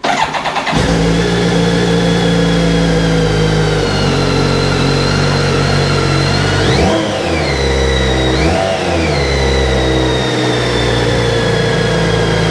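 2010 BMW K1300GT SE's inline-four engine cranked on the starter, catching within a second, then idling steadily. The throttle is blipped twice, about seven and eight and a half seconds in, each rev rising and falling back to idle.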